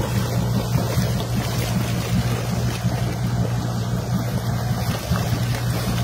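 Boat's engine running steadily, a low even hum under a constant hiss.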